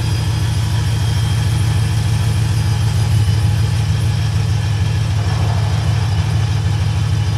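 A Ram 1500 pickup's Hemi V8 idles with a loud, deep, steady rumble while the truck creeps forward and stops.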